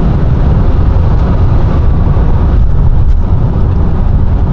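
Steady in-cabin drone of a Toyota GR Yaris cruising at motorway speed: a deep, even rumble of engine and tyres with wind rush over it.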